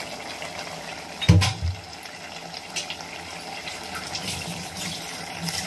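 Thick potato masala simmering in a pot: steady bubbling with a few short pops, and one dull thump about a second in.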